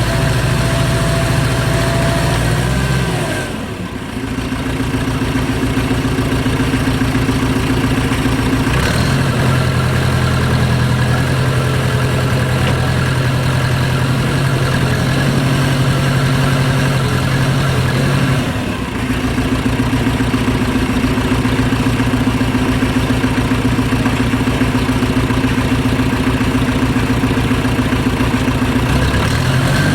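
Case 580CK backhoe loader's engine running steadily; its note dips and changes pitch twice, about four seconds in and again about nineteen seconds in, then settles.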